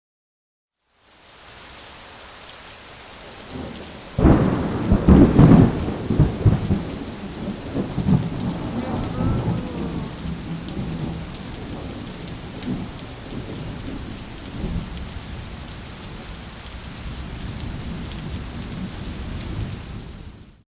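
A thunderclap breaks about four seconds in and rolls on as a long rumble that slowly dies away, over a steady hiss of rain.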